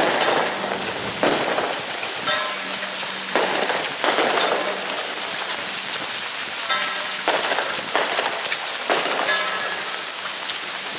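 Steady hiss of heavy rain falling on the plastic raincoats of a walking crowd. Rough crackling bursts about a second long come every second or two, and short pitched sounds recur every few seconds.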